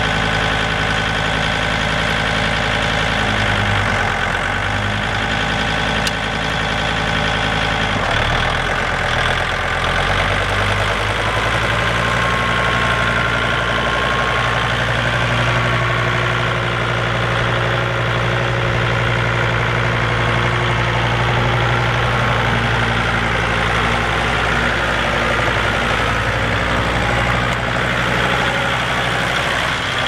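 Kubota L4190DT compact tractor's diesel engine running as the tractor is driven, its engine speed shifting a few times in the first ten seconds and then holding steady.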